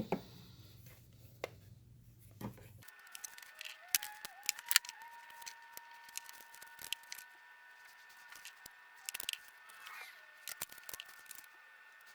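Light clicks, taps and rustles of small plastic parts being handled, as tabs are super glued onto a 3D-printed PLA drill bit holder. A faint steady high whine runs underneath from about three seconds in.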